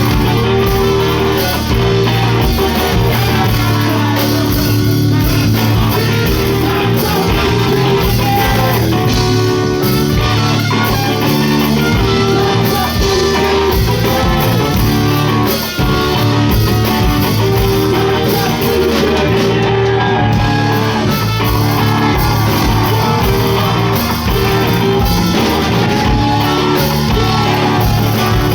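Live rock band playing with guitar and drum kit, a voice singing over the music.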